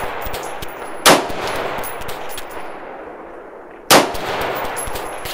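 Two rifle shots from a 5.56 AR-style rifle firing 55-grain rounds, about three seconds apart, each trailing off in an echo.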